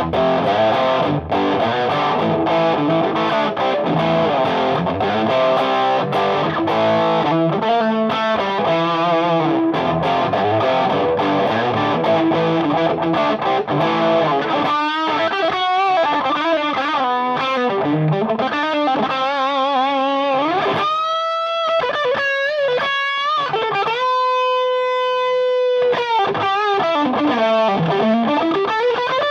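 Electric guitar (PRS S2 Custom24) overdriven by a Ramble FX Marvel Drive pedal into a Marshall JVM amp set clean: distorted chord riffing for about the first half, then single-note lead lines with string bends and vibrato on held notes.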